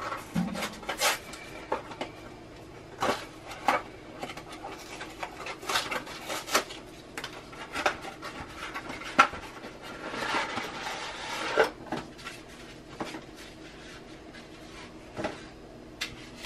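Scattered clicks and knocks of cookware and utensils being handled, with a short scraping rustle about ten seconds in.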